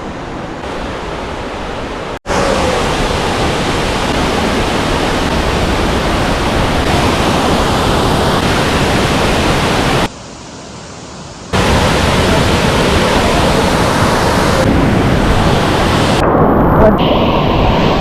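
Waterfall crashing into its pool, a loud, steady rushing noise. It cuts out for an instant about two seconds in and drops lower for about a second and a half near the middle, as the shots change.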